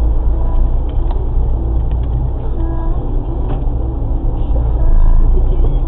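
Car engine and road noise heard inside the cabin: a loud, steady low rumble, with a few faint short tones from traffic around it.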